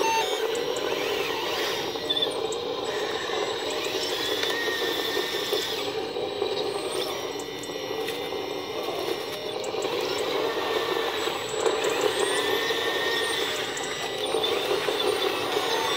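Electric motors and gearboxes of a radio-controlled excavator and dozer whirring steadily as they dig and push gravel, with a higher motor whine rising and falling a few times.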